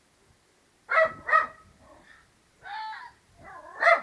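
A dog gives two sharp barks about a second in. A fainter, drawn-out fox bark answers, and the dog barks loudly again near the end.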